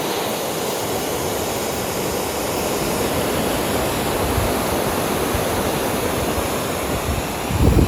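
River waterfall rushing steadily, water pouring over it. Near the end a brief low rumble of wind buffets the microphone.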